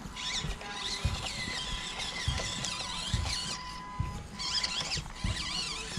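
Small birds chirping and twittering, with a few scattered low knocks from the SCX24 micro crawler working over the rocks.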